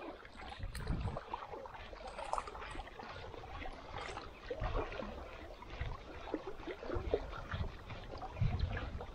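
Small waves lapping and trickling against the hull of a small boat, with gusts of wind rumbling on the microphone.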